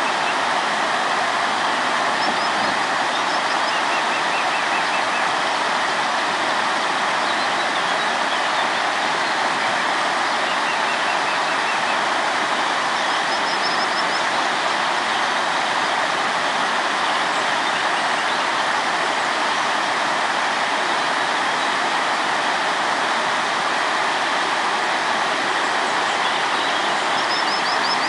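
River water rushing steadily over rocks, with faint bird chirps a few times.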